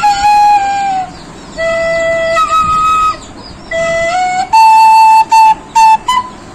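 End-blown bamboo flute played solo: a slow folk melody in short phrases of held notes with small pitch bends, broken by brief pauses for breath. Near the end it plays a run of quick, separately tongued short notes.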